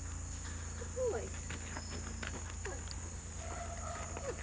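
Steady high-pitched chirring of insects, with soft scattered footsteps of a horse and a person on sandy dirt.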